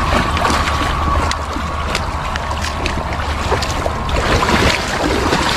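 Legs wading through shallow water, splashing and sloshing with each step over a steady low rumble.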